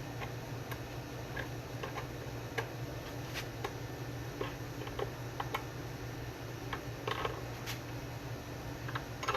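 Irregular light clicks and ticks of a wrench working the nut on a stereo long-barrel output jack, tightening it into a bass body's electronics cavity, over a steady low hum.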